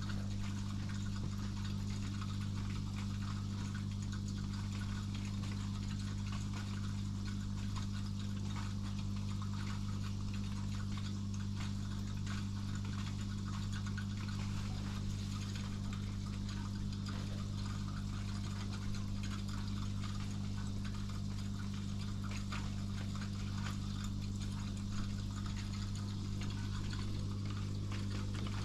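Aquarium pump humming steadily, with water bubbling and trickling in the tank.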